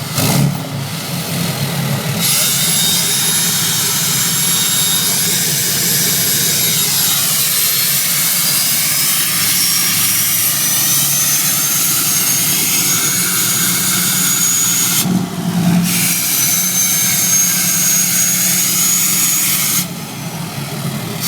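Turbocharger on a Dodge pickup whistling loudly over the running engine: a high whine that rises in pitch as the turbo spools up, drops out for about a second a little past halfway, then comes back until near the end.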